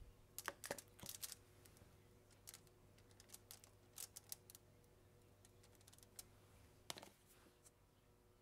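A metal spoon scooping and spreading salted squid onto shiitake caps on a foil-lined tray makes faint, scattered small clicks and taps. The loudest come about half a second in, around one second, and about seven seconds in.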